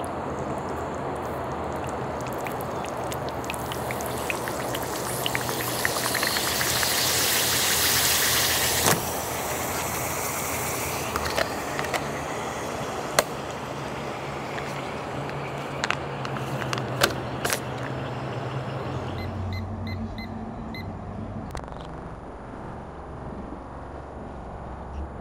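Self-heating meal kit being readied: a loud hiss for a few seconds as water meets the heating pad, cutting off sharply, then a few sharp plastic clicks as the lid is pressed onto the tray. A steady rushing background runs underneath and thins out near the end.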